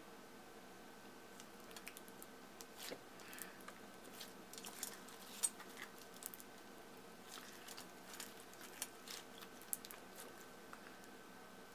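Orange clear slime packed with foam beads (floam-style) being squeezed, folded and pressed by hand: irregular crunchy clicks and pops from the beads and sticky slime, starting about a second and a half in and dying away near the end.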